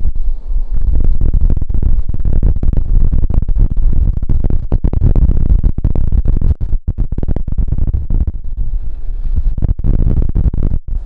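Strong wind buffeting the camera's microphone, a loud, choppy low rumble with brief dropouts, over the sound of surf.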